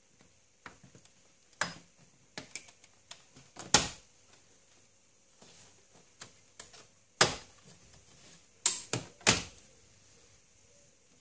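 Sharp plastic clicks and snaps as the radio trim frame of a VW Golf VI dashboard is pried off, its retaining clips letting go: about five loud snaps with lighter clicks between them.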